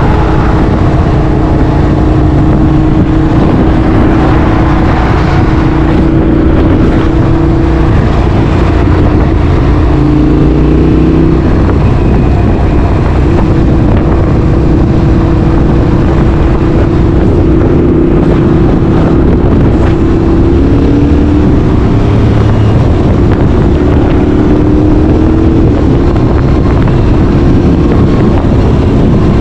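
Yamaha R7's 689 cc parallel-twin engine through an Akrapovič exhaust, running loudly under way. Its pitch holds mostly steady, with brief dips and rises about ten seconds in and again after twenty seconds.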